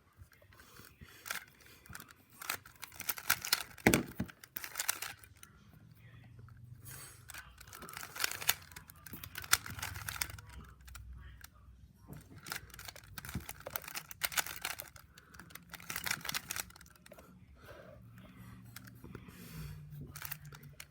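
Rubik's Cube being turned by hand during a solve: quick flurries of plastic clicking and clacking as the layers snap round, with short pauses between, and one louder knock about four seconds in.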